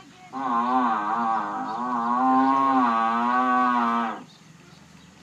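Buffalo giving one long moo-like call of about four seconds, its pitch wavering up and down, ending abruptly about four seconds in.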